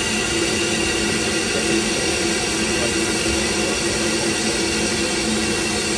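Steady hiss and rush of steam from narrow-gauge steam locomotives standing in steam, with a few faint steady hums running through it.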